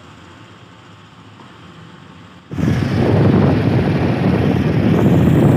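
Quiet shop background, then after a cut about two and a half seconds in, loud wind buffeting the microphone of a phone held by riders moving along a road, most likely on a motorbike.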